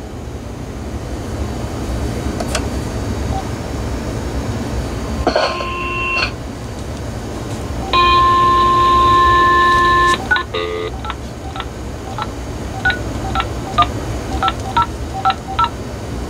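AT&T EL51359 DECT 6.0 cordless phone handset going off-hook and dialing out: a short beep, then a steady dial tone for about two seconds, then about ten quick touch-tone (DTMF) key beeps as a phone number is keyed in.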